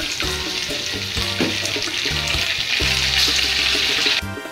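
Flour-coated chicken pieces sizzling as they fry in hot oil in a wok, a dense steady crackle that cuts off abruptly near the end.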